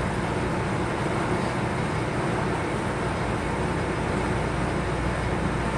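Metal lathe running steadily at 355 RPM with the carriage on power feed, the turning tool taking a cut along the bar: an even machine hum and cutting noise.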